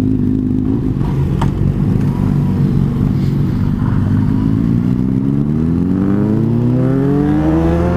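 Yamaha FZ-07's parallel-twin engine heard from the rider's seat, running steadily at low revs, then rising steadily in pitch over the second half as the bike accelerates away. A single sharp click about a second and a half in.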